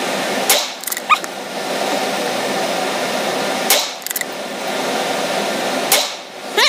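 A CZ 457 bolt-action .22 rifle at the shooting bench: three short, sharp sounds a few seconds apart over a steady rushing noise.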